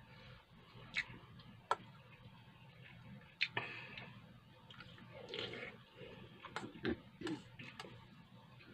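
Metal spoon clinking and scraping in a stainless steel bowl as food is scooped and eaten: scattered sharp clinks, a few in the first half and a quicker cluster near the end, with softer eating sounds between.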